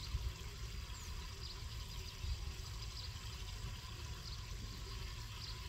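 Open-field ambience: a steady hiss over a low, uneven rumble, with faint short high chirps about every second and a half.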